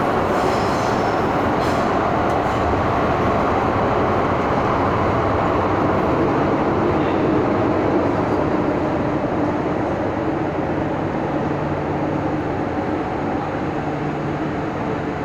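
Interior running noise of an MTR M-Train (Metro-Cammell EMU) travelling through a tunnel: a steady, loud rumble of wheels on rail and traction equipment. A low, even hum joins in during the second half, and the sound eases slightly near the end.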